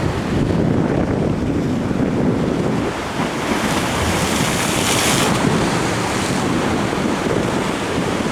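Large ocean surf breaking and surging around a lava-rock jetty, with wind buffeting the microphone. A brighter hiss of breaking water rises around the middle.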